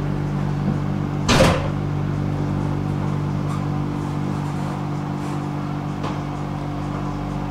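Steady hum of a tram's electrical equipment as it stands at a stop, heard from inside the car, with several constant tones. About a second and a half in comes one short, loud burst of noise.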